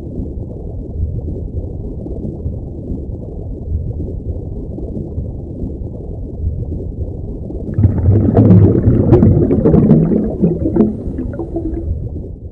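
Muffled underwater water sound effect: a dull, steady rumble with everything high cut off. About eight seconds in it turns louder into bubbling and gurgling.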